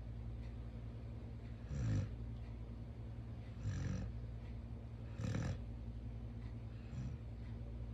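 Chow Chow dog snoring in its sleep, four snores about every one and a half to two seconds, the last one weaker, over a steady low hum.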